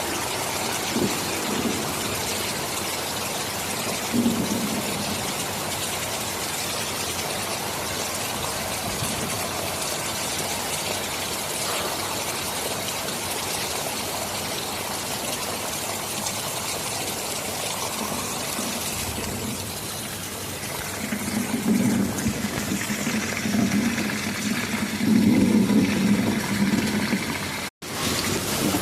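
Steady heavy rain hissing, with a low rumble of thunder building in the second half and loudest a few seconds before the end. The sound cuts out for an instant near the end.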